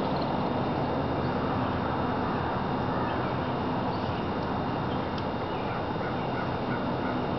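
Unexplained steady rushing roar heard outdoors at dawn, like a waterfall, wind or a plane passing by, with a low hum beneath it. Faint short bird chirps come and go above it.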